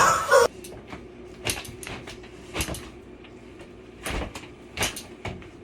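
A series of sharp, irregular smacks and knocks, about eight over several seconds, over a faint steady hum.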